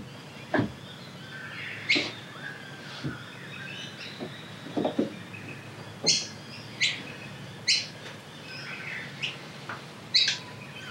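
Short, bright bird calls, repeated several times, three of them in quick succession about a second apart, with a few light knocks and taps as the side window glass is worked down into the door.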